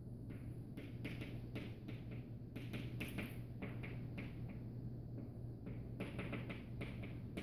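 Chalk tapping and scratching on a blackboard while words are written by hand: an irregular run of short clicks and scrapes, over a steady low hum.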